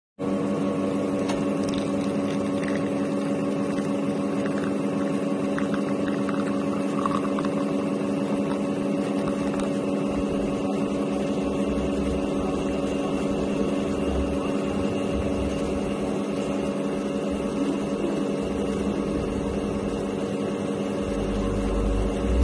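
Espresso machine pump humming steadily while a shot extracts through a bottomless portafilter, with a low rumble coming in near the end.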